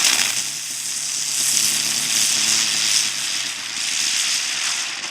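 Weco Dicke Brummer ground spinner firework whirling: a steady loud hiss with a low buzzing hum underneath.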